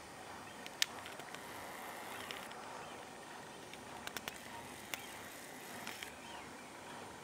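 Outdoor ambience: a faint steady background hiss and hum, broken by a handful of sharp clicks or knocks. The loudest click comes about a second in, and there is a quick run of three about four seconds in.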